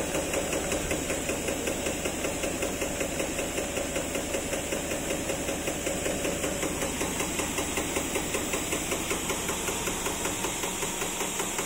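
A two-colour drinking straw extrusion line running: a steady machine hum with a fast, regular knocking several times a second as the line cuts and drops straws onto the conveyor. The low rumble drops away near the end.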